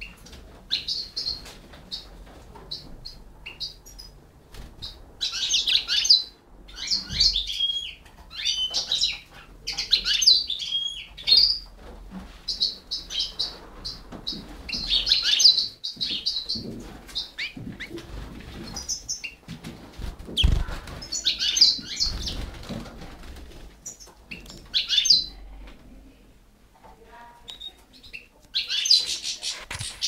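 A goldfinch and canary chicks chirping in repeated bursts of high cheeps every few seconds, the sound of nestlings being fed, with a few dull thumps between bursts.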